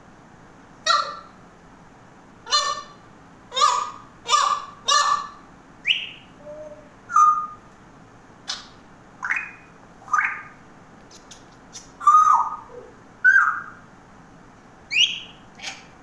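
African grey parrot giving a string of short squawks and whistled calls, about one a second, a few of them sliding up in pitch.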